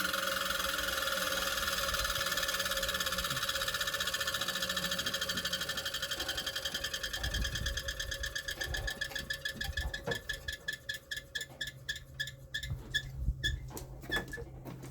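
A small handheld power tool's motor running, then slowing down. Its steady whir breaks into pulses that get slower and slower and die out near the end, with a few light knocks.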